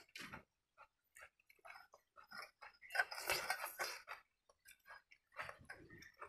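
Faint eating sounds of a man eating watered rice with his fingers: chewing, small wet clicks and rustles, with a louder noisy stretch lasting about a second, about three seconds in.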